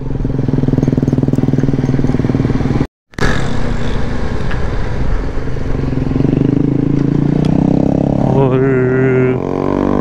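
Motorcycle engine running steadily under way, heard from on the bike with wind rumble. The sound drops out for a moment about three seconds in, and a brief wavering higher tone comes in near the end.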